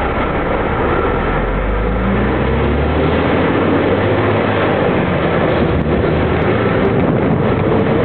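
Natural-gas Ikarus 260 city bus engine pulling away and accelerating, its note rising in pitch about a second and a half in, then running on lower.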